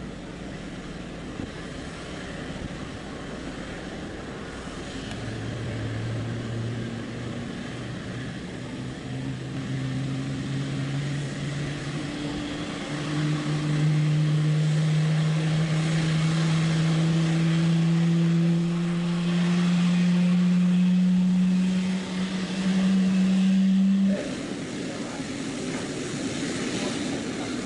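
Boeing 777-300ER's GE90 jet engines running on the ground. A low whine rises slowly in pitch and grows louder over most of the stretch, then cuts off abruptly near the end, leaving a duller rumble.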